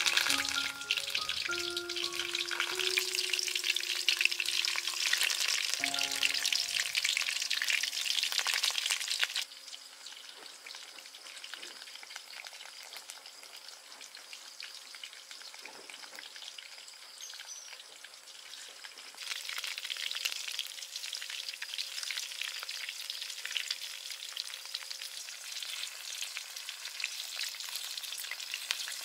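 Betel-leaf-wrapped minced pork rolls sizzling in hot oil in a wok, turned now and then with chopsticks. The sizzle drops suddenly about nine seconds in and picks up again about ten seconds later. A few notes of music sound over the first several seconds.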